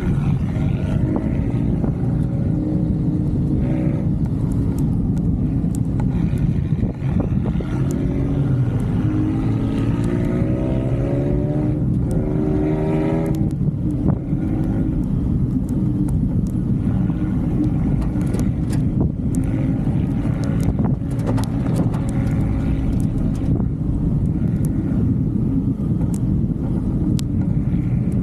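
A motor vehicle driving, its engine and road noise running steadily. Between about eight and thirteen seconds in, the engine pitch rises as it revs up, then drops sharply, with scattered short knocks throughout.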